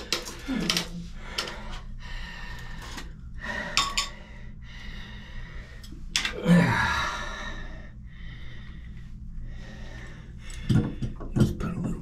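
Clinks and scrapes of tools and metal parts being handled, with a short breathy vocal sound about six and a half seconds in.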